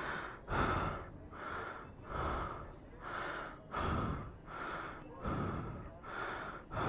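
A person breathing hard close to the microphone: quick, even breaths, about one every three quarters of a second.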